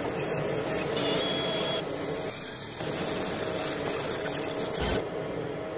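CO2 laser cutter running with a steady hum and hiss. A short low thump comes about five seconds in, after which the hiss drops away.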